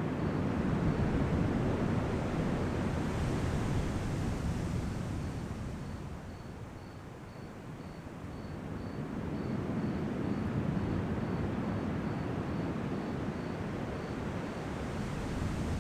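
Ocean surf breaking and washing ashore: a low, steady rush that eases off midway and builds again. A faint high chirp repeats about twice a second.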